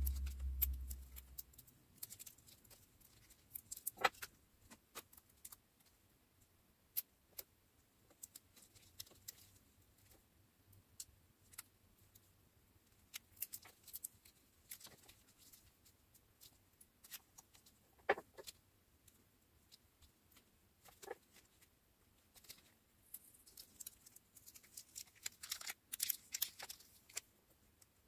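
Faint handling sounds on a small paper notebook: scattered light clicks and taps of metal tweezers on stickers and paper, after a low thud that fades out in the first second or two. Near the end comes a denser run of crisp snips as scissors trim along the page edge.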